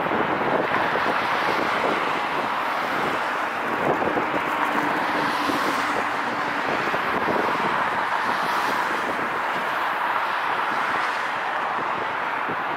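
Twin jet engines of a narrowbody airliner at takeoff thrust during the takeoff roll and liftoff, a steady rushing engine noise heard from behind the aircraft.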